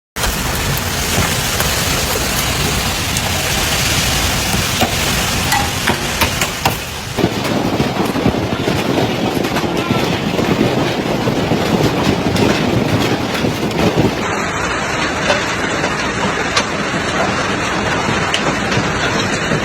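Heavy hailstones and rain hammering down in a storm: a loud, dense hiss with many sharp individual hits. The sound changes abruptly about seven and fourteen seconds in.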